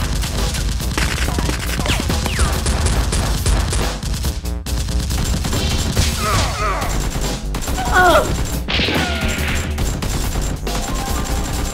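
Rapid gunfire sound effects in fast bursts, laid over background music with a steady low beat.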